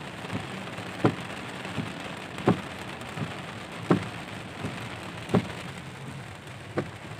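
Heavy rain beating on a car's windshield and roof, heard from inside the cabin. A regular knock about every one and a half seconds, with a fainter one between each pair, comes from the windshield wipers sweeping back and forth.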